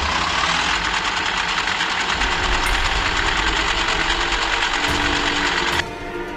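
Vehicle engine sound effect revving hard up toward the red line, a dense steady mechanical noise that drops off sharply near the end.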